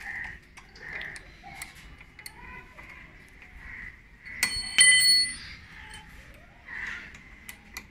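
A metal hand tool clinking against the motorcycle's front fork hardware: two sharp metallic strikes that ring briefly, about four and a half seconds in, amid small handling clicks.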